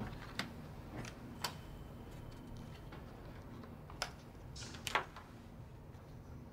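Light clicks and knocks of an office chair as a man pulls it out and sits down, in the first second and a half. About four and a half seconds in there is a short rustle, then a sharper click.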